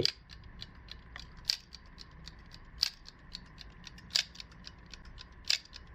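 Mechanical alarm clock with a gradual-wake mechanism: the movement ticks quickly while the alarm hammer knocks on the case in single blows, about every 1.3 seconds, five times. This is the gentle first stage, before the alarm rings in full.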